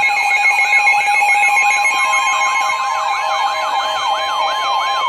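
Loud emergency alert attention tones layered with siren wails: steady alarm tones held together under many overlapping rising-and-falling siren sweeps, repeating several times a second without a break.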